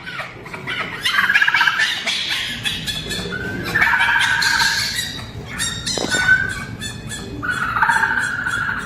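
Fennec fox calling: about four bursts of rapid, chattering squeals, about a second in, around four seconds in, briefly at six seconds and again near the end.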